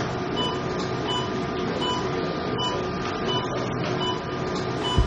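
Patient monitor in an operating room giving short, regular beeps, slightly faster than one a second, over a steady background hiss.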